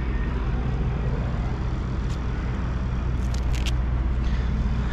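Diesel truck engine idling with a steady low hum, with a few light clicks about two and three and a half seconds in.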